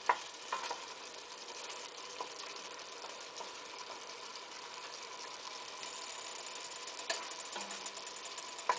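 Soup base sizzling steadily in hot oil in a pot, with a few sharp clicks near the start and near the end.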